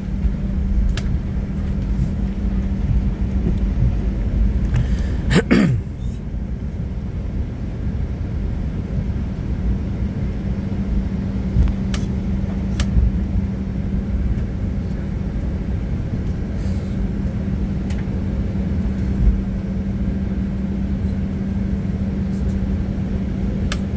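Cabin noise of a Boeing 737-800 taxiing on one engine after the other has been shut down: a steady low rumble with a constant hum. A short falling whine with a rush of noise comes about five seconds in.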